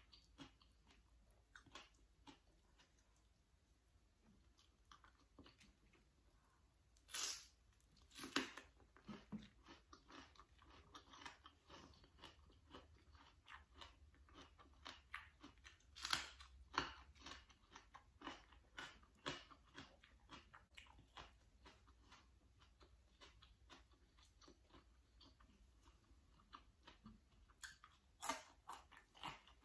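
Close-up chewing and crunching of raw vegetables eaten with chili dip, with a few louder crunching bites about 7, 8, 16 and 28 seconds in.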